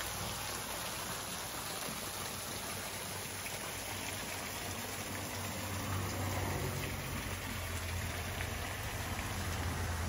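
Scott Falls, a small waterfall, spilling off a rock ledge and splashing into a shallow pool: a steady patter of falling water. A low rumble grows stronger from about six seconds in.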